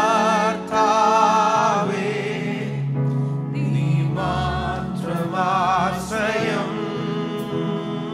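A man singing a slow Malayalam Christian worship song into a microphone: two long sung phrases with wavering, held notes, over sustained instrumental accompaniment.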